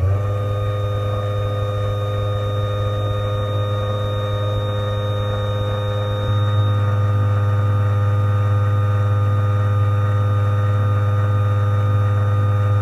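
Genie Model 1024 Pro garage door opener motor running unloaded on its up travel, with no chain or rail fitted. A steady motor hum that gets a little louder about halfway through.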